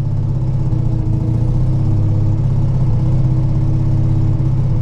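1985 Mazda RX-7's rotary engine and homemade stainless-steel-wool-packed exhaust running steadily, heard from inside the cabin, a low droning hum that grows slightly louder. It measures about 88 to 90 dB in the cabin.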